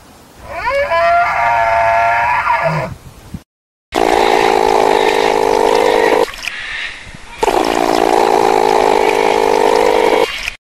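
A bull elk's call: a pitched, many-harmonic call that slides up at its start and lasts about three seconds. After a brief break come two long, loud, harsh noisy stretches of sound with a short dip between them.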